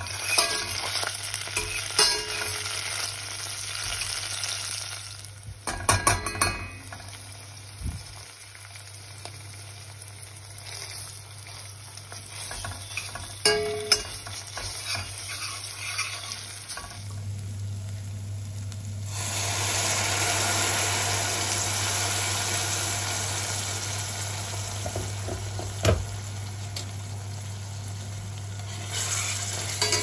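Dried peppers and red paste sizzling as they fry in oil in a stainless steel pot, with a metal spatula and spoon scraping and knocking against the pot as they are stirred. The sizzling gets louder for about ten seconds past the middle.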